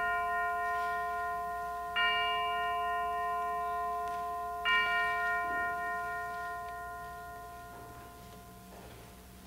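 A bell struck and left to ring, struck again about two seconds in and again near five seconds, each stroke ringing on and fading slowly; rung to open the worship service.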